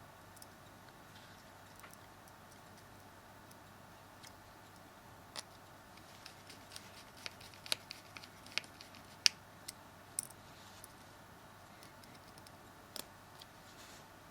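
Scattered small clicks and ticks of a small Phillips screwdriver and tiny screws against a smartphone's frame as the screws are driven back in, most of them bunched in the middle, over a faint steady hum.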